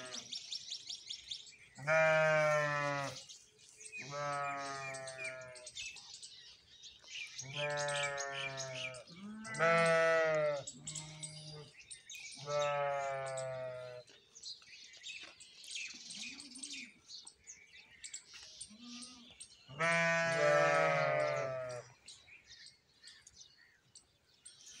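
Water buffalo calling repeatedly: about six loud, drawn-out bleating calls, each a second or two long, with a slight waver and a long pause before the last one.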